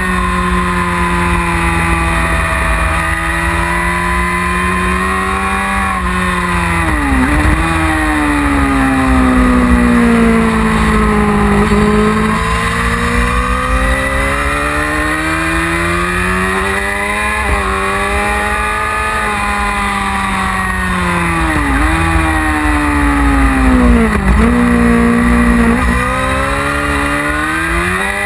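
1999 Yamaha R6's inline-four engine, heard on board at track speed. Its pitch climbs and falls through the gears, dropping sharply at quick gear changes several times, over a steady low wind rumble.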